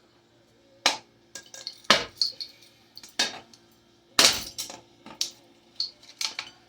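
Repeated blows smashing a ceiling fan: four heavy strikes about a second apart, the loudest about four seconds in, with lighter metallic clinks and rattles between them.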